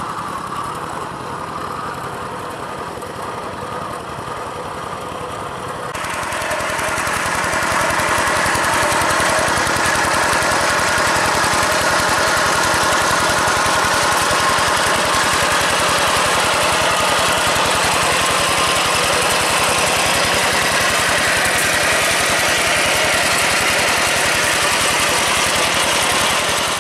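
Single-cylinder diesel engine of a two-wheel hand tractor running steadily while it works a muddy rice paddy. It is fainter for the first few seconds, then much louder from about six seconds in.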